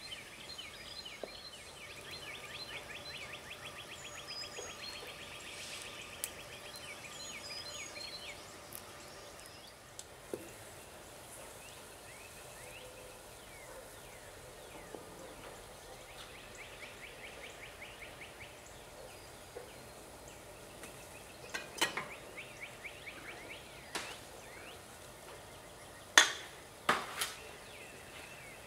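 Bird calls outdoors, a rapid trill with chirps early on and again midway, then several sharp knocks near the end, the stirring stick striking the rim of a stainless steel saucepan of pitch.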